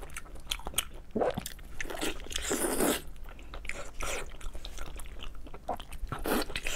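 Close-miked biting and chewing of a large piece of braised meat, a series of separate bites and chews with a longer, louder one about two and a half seconds in.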